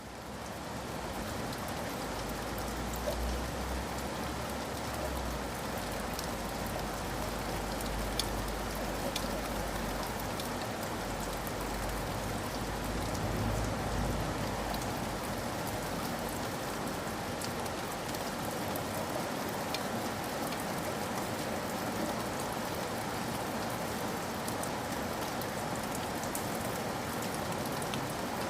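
Steady rain falling, with scattered individual drop ticks; it fades up from silence at the start. A low rumble sits underneath through the first half.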